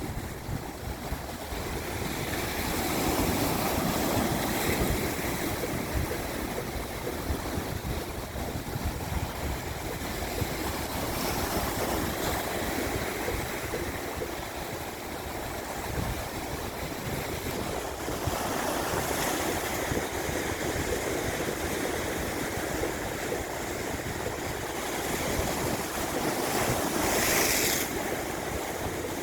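Sea waves breaking on a rocky shore: a continuous rush of surf that swells louder several times, around four seconds in, near twenty seconds and again near the end.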